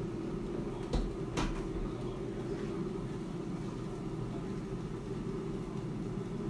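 Klarstein AeroVital air fryer running, its fan and heater making a steady hum, with two short knocks about a second in.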